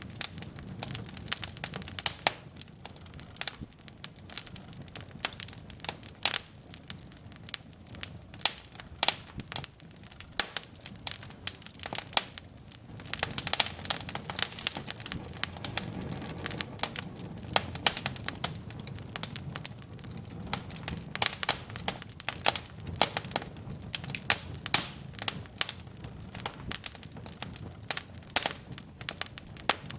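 Wood logs burning in a fireplace: irregular sharp crackles and pops over a low, steady rumble of flames.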